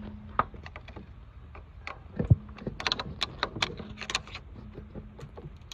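Metal hand tools clicking and clinking irregularly as a flathead screwdriver is fetched, with one sharper knock a little over two seconds in and a faint steady hum underneath.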